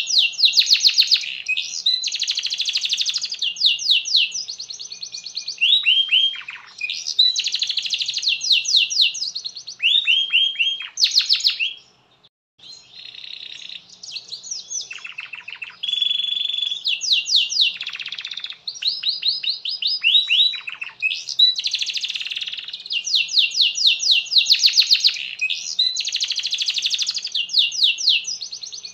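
Domestic canary singing a long, continuous song of rapid trills and rolls, with phrases of quick downward-sweeping notes. The song breaks off briefly about twelve seconds in. It is the non-stop full song that keepers call gacor.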